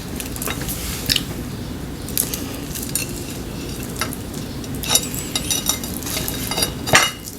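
Spoons and chopsticks clinking and scraping against bowls and dishes during a meal, a sharp clink every second or so with a cluster near the end, over a steady low hiss.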